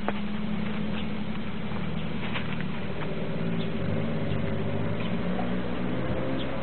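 Low engine hum, as of a motor vehicle on the street, running steadily with its pitch drifting slightly.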